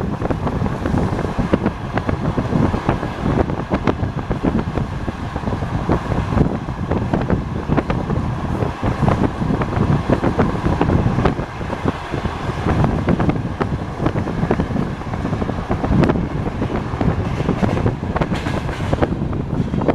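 Passenger train carriage rolling along the track: a steady rumble with the clatter of the wheels over the rails, and wind noise on the microphone at the open window.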